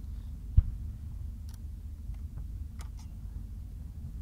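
A single dull thump about half a second in: a distant aerial firework shell being launched from its mortar. It sits over a steady low outdoor rumble, with a few faint ticks later on.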